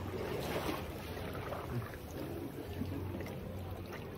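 A boat's motor humming steadily over the wash of water, with the hum easing for about a second midway.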